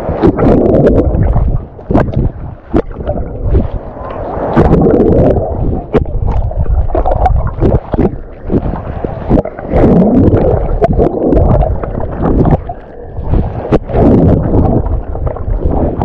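Choppy sea surf sloshing and splashing close to the microphone, swelling and ebbing every second or two, with wind buffeting the microphone.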